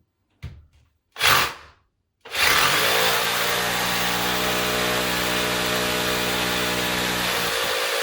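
Electric drill boring a hole into a wall: a brief burst, then a steady run of about six seconds at one pitch.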